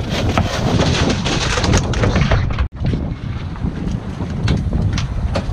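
Heavy wind buffeting the microphone on a boat at sea. The sound cuts out for an instant about halfway through.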